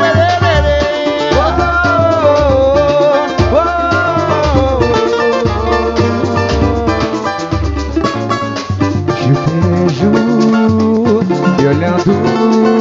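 Samba group playing an instrumental passage with no singing: deep drum beats keep a steady pulse under quick percussion and plucked strings. A melodic line slides up and down over the top in the first half, and a lower sliding run comes in near the end.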